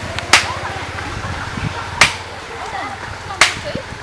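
A blade chopping into a tree trunk: three sharp, loud strikes about one and a half seconds apart.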